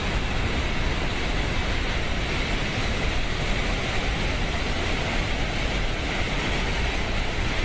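Steady rushing noise of water flowing through a pipeline driven by a running pump.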